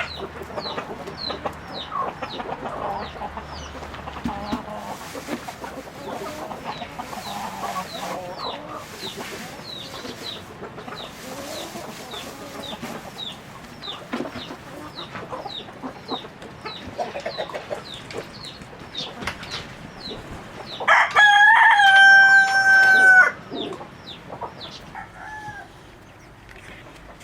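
Chickens clucking, with a steady repeated high cheep two or three times a second. A rooster crows once about 21 seconds in, a loud two-second crow ending on a long held note.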